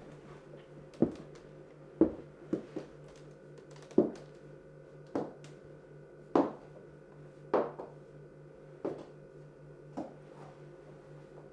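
Slow footsteps on a wooden floor: about ten sharp knocks roughly a second apart, two of them closer together about two and a half seconds in, over a faint steady low hum.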